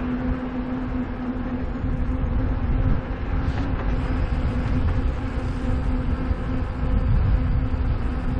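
Low rumble of wind buffeting and rolling noise while riding an e-mountain bike, with a steady droning hum and its overtone running through it.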